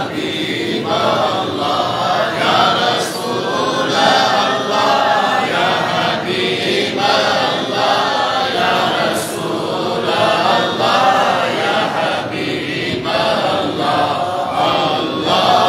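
A group of men chanting together in unison, a devotional praise song for the Prophet.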